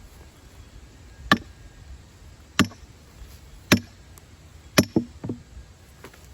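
Wood being chopped by hand: four hard strikes about a second apart, the last followed by two lighter knocks.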